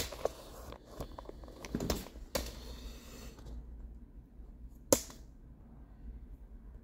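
Handling noise from a camera being moved and set on its stand: three sharp clicks, the last about five seconds in, with softer knocks and rustling between the first two.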